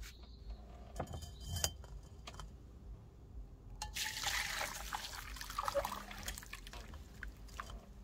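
Fir-bud infusion poured from a stainless saucepan through a wire mesh sieve into a glass bowl, straining out the boiled buds. The pour starts about halfway through as a steady splash, then thins to drips. A few light clinks of kitchenware come about a second in.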